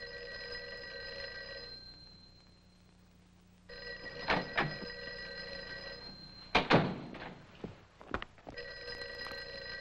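Telephone bell ringing three times, each ring about two seconds long with pauses between them; the third ring is still sounding at the end. Several sharp thuds fall during and after the second ring, the loudest about two-thirds of the way through.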